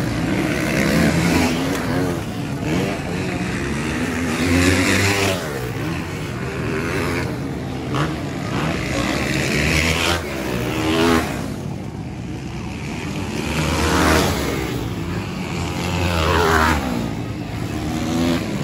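Motocross dirt bikes racing round a dirt track, their engines revving up and down as the riders work through the gears, rising and falling as each bike passes.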